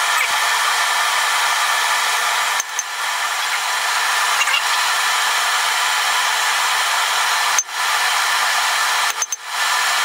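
Steady rushing air-blast noise of a running blacksmith's forge, with a faint steady hum beneath it, breaking off briefly about three times.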